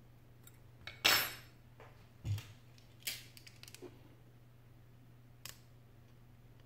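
A metal spatula scraping and tapping against the plastic frame of a tablet touch-screen glass: a short scrape about a second in, a dull knock a little after two seconds, then scattered light clicks. A low steady hum runs underneath.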